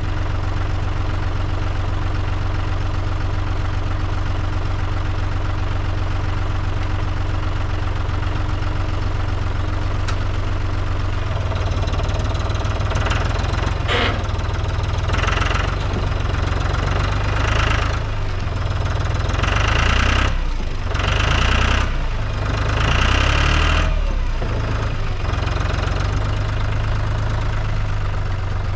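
Tractor engine running steadily, then from about twelve seconds in labouring under load in a series of surges, with bursts of higher-pitched strain, as the loader forks try to lift a heavy log.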